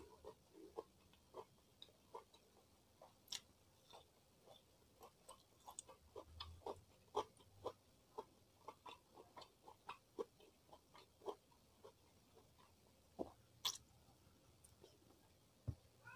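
Close-miked chewing of crunchy food: faint, irregular crisp crunches and mouth clicks, a few each second.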